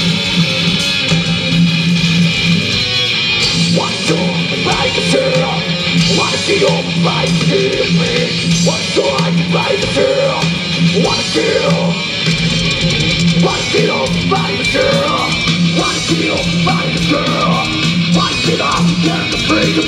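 Live rock band playing an instrumental passage on electric guitars, bass guitar and drum kit, with no vocals.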